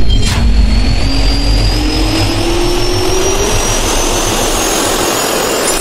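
Jet engine spool-up sound effect: a loud rush of air with a turbine whine rising slowly in pitch. A short click just after it starts.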